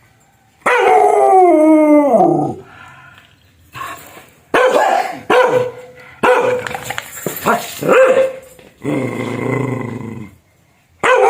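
A dog barking fiercely: a long, howling bark that falls in pitch about a second in, then a run of short barks, a lower drawn-out call near the end, and another long falling bark at the very end.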